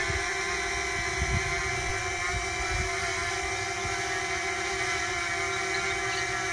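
DJI Mini quadcopter drone hovering, its propellers giving a steady whine made of several tones at once. With the drone turned side-on, a secondary tone stands out more.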